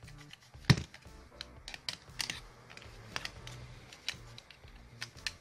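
Irregular sharp clicks and knocks of hard plastic as a cordless impact wrench's housing is handled and opened up, with one loud knock under a second in. Background music runs underneath.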